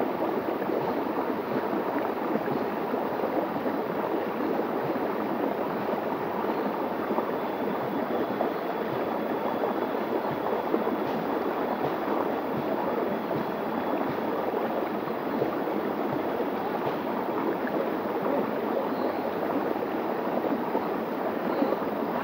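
Small forest stream flowing steadily over flat rock and little cascades, a constant splashing and gurgling of water.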